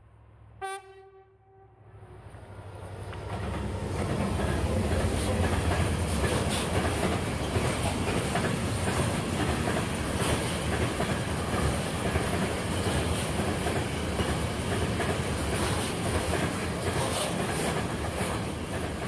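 A locomotive gives one short horn blast about a second in. Then a container freight train passes close by: a rumble that builds over the next few seconds and stays loud and steady, with the wagons' wheels clattering on the rails.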